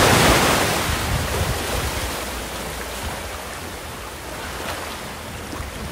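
A small sea wave breaking and splashing against granite boulders, then rushing up over the sand. The rush is loudest at the start and fades steadily as the water washes back.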